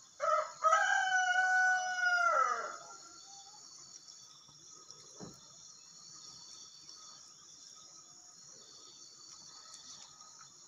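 Rooster crowing once near the start: a short first note, then a long held note that drops in pitch as it ends, about two and a half seconds in all. Afterwards a steady faint high chorus of insects, with one faint thump about halfway through.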